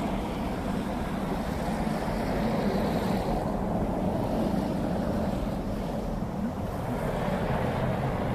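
Wind buffeting a phone's microphone outdoors: a steady, rumbling noise without any clear tone.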